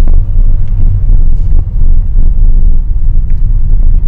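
A car driving slowly, heard from inside the cabin: a steady, loud low rumble of engine and road noise.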